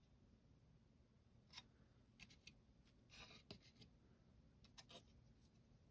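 Near silence with a few faint clicks and rustles of plastic model-kit parts being handled.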